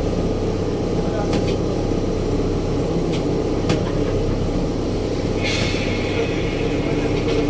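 Ferry boat's engine running with a steady low drone. A few light knocks come through, and a hiss joins in about two-thirds of the way through.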